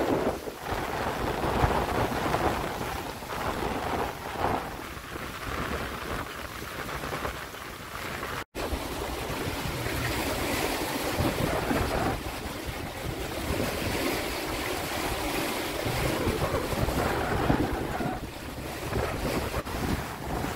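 Water rushing and splashing along a trimaran's hull and float as it sails through choppy sea, with wind buffeting the microphone. The sound cuts out for an instant about eight seconds in.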